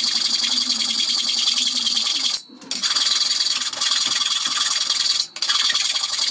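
Hand file rasping across a steel lathe tool holder clamped in a vise, filing clearance into the tool slot so the high-speed steel cutter will tilt back. Steady rasping, with two short breaks about two and a half and five seconds in.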